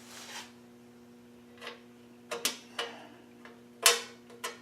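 A handful of irregular sharp clicks and taps of hand tools and small metal hardware being handled during assembly, the loudest about four seconds in, over a steady electrical hum.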